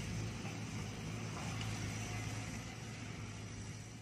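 Diesel engine of a Caterpillar hydraulic excavator running with a steady low drone as the machine works its boom and bucket, slowly fading toward the end.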